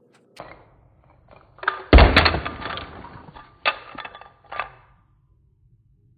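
A crash: a small knock, then a loud heavy thud about two seconds in with clattering that trails off over a second and a half, then two shorter knocks.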